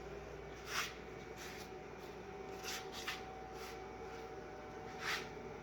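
Faint, brief rustling handling noises, about six of them, over a steady low room hum with a faint steady high tone.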